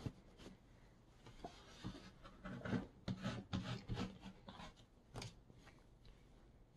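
Faint handling sounds of a plastic stencil wheel being pressed, rubbed and shifted by hand over a canvas, with a scatter of light clicks and rustles.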